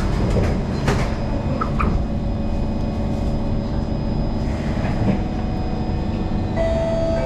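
Metro train's sliding doors shutting with a knock about a second in, then the carriage's steady low rumble while standing. Near the end an electric whine of several steady tones starts up as the train's traction motors begin to pull away.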